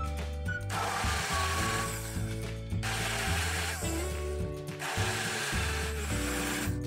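Electric hand blender whirring as it blends rolled oats and yogurt, starting about a second in, stopping briefly near three seconds, then running again until near the end, over background music with a steady bass line.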